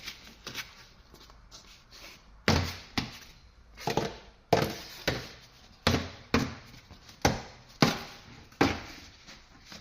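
A door's plastic vapour-barrier sheet being pulled off its sticky butyl sealant in a series of short tugs. Each tug makes a sharp ripping sound, about one every half-second, starting a couple of seconds in.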